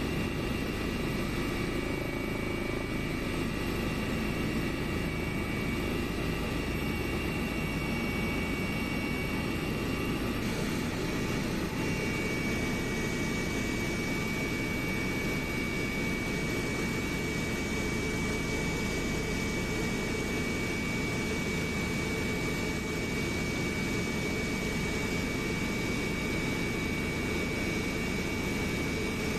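Steady cabin noise inside an airliner in flight: an even drone of engines and rushing air with a thin, steady high whine, which steps slightly lower in pitch about eleven seconds in.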